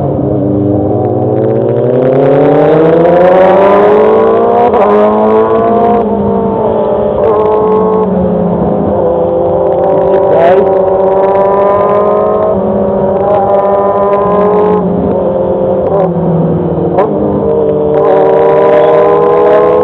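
Motorcycle engine accelerating hard, its pitch climbing and then dropping in steps several times as it shifts up through the gears, with a few short clicks along the way.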